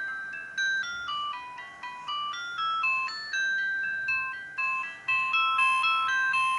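Siemens CL50 mobile phone playing one of its built-in ringtones: a chiming electronic melody of short notes, about two a second, each starting sharply and fading away.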